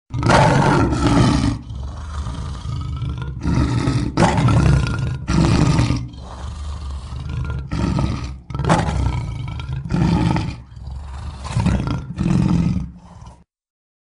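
A lion roaring: a series of deep roars, one every second or two, which cuts off abruptly about thirteen seconds in.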